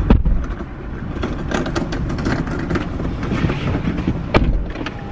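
Car running, a steady low rumble of engine and road noise, with a sharp knock just after the start and another about four seconds in.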